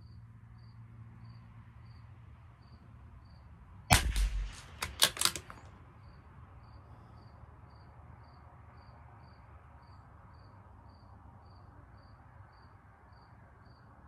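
A single .22 LR rifle shot about four seconds in, followed at once by a quick run of sharp metallic clicks as the bolt is worked to eject the case and chamber the next round.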